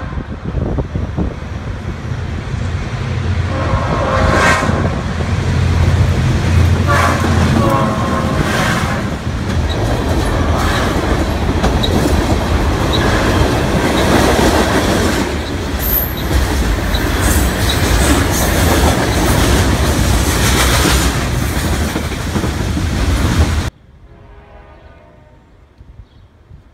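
Diesel freight train passing close by. The locomotive's engine runs loud and steady, and its horn sounds a few blasts in the first third. The wheels then clack over the rail joints as the train goes by, until the sound cuts off abruptly near the end, leaving a much quieter background.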